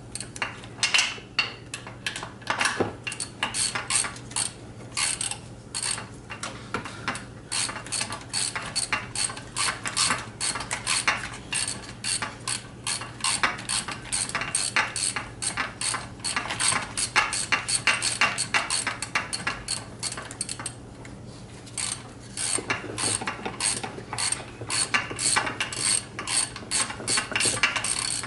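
Hand ratchet wrench clicking in rapid strokes as a top engine-to-transmission bolt is run in, with a short pause about three-quarters of the way through.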